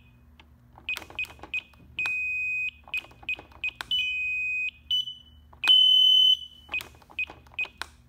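Brinks BHS 3102 security keypad beeping as its buttons are pressed: a string of short high beeps with faint key clicks, broken by three longer steady tones, the loudest of them about six seconds in.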